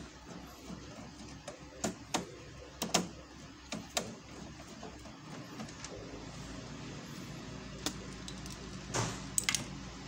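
Scattered sharp clicks and light taps of a screwdriver working on a colour laser printer's internal metal and plastic parts while screws are removed, over a faint steady hum.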